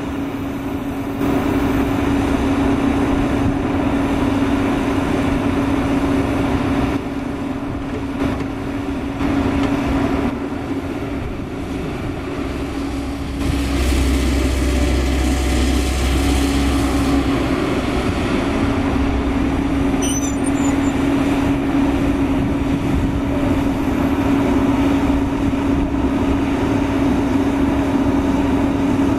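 JCB JS210 NLC tracked excavator's diesel engine running steadily with a constant hum as the machine digs, and a deeper rumble for a few seconds around the middle.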